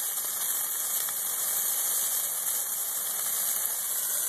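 Dry evergreen Christmas tree burning fiercely in a bonfire: a steady, unbroken hissing rush of flames as the needles flare up.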